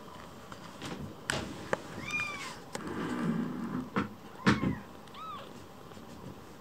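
Young kittens mewing: a high mew that rises and falls about two seconds in, and a shorter, softer one near five seconds. A few knocks sound in between, the loudest about four and a half seconds in.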